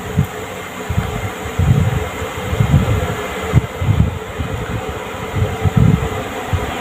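A steady mechanical hum, like a running fan, with irregular low rumbling swells, like air buffeting the microphone.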